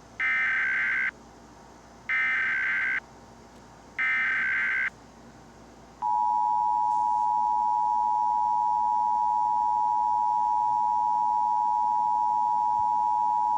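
Emergency Alert System SAME header: three buzzy bursts of digital data, each about a second long and two seconds apart, encoding a tornado watch alert. About six seconds in, the steady two-tone EAS attention signal starts and holds.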